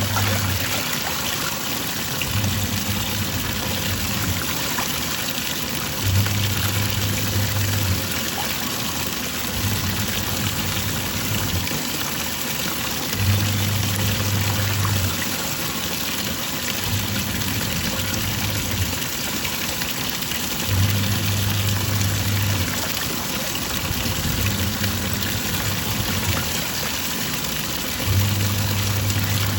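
Twin-tub washing machine in its wash cycle: the pulsator motor hums in runs of about two seconds with short pauses between them, over water churning in the tub.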